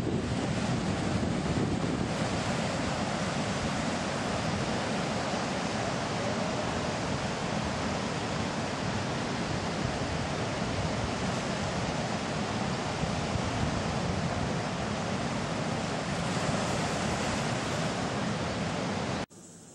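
Atlantic surf breaking on a beach: a steady rush of waves, with wind on the microphone. It cuts off suddenly just before the end.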